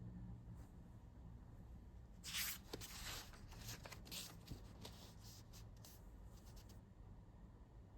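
A soft rustling and scratching in a quiet room: a loud rustle about two seconds in, then a string of short, quick strokes that stop a little before the end.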